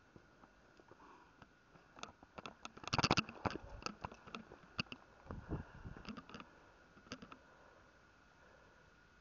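Sharp clicks, taps and scrabbling right at the microphone, from the ground squirrel's plastic carrier and the camera mounted on it. The clicks come thick and loud about three seconds in, with a duller knocking cluster a little after five seconds, and thin out after about seven seconds over a faint steady high tone.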